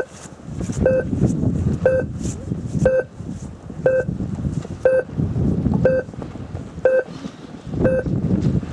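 Electronic regatta start timer giving short, even beeps about once a second, the countdown of a model-yacht race start sequence, over wind rumble on the microphone.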